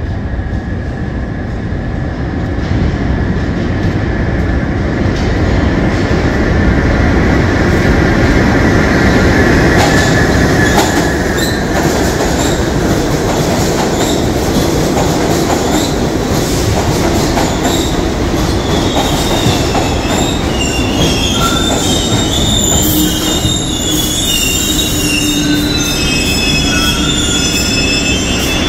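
New York City Subway 6 train running into the station: a steady loud rumble of steel wheels on rail with clicks over the rail joints and a high whine in the first third. From about two-thirds of the way in, high wheel and brake squeals come in as it slows to a stop.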